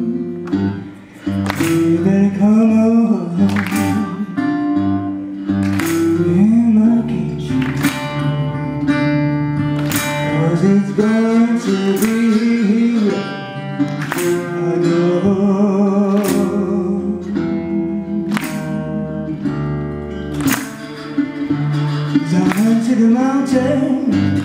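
Live blues performance: acoustic guitars and singing, with a sharp percussion accent about every two seconds.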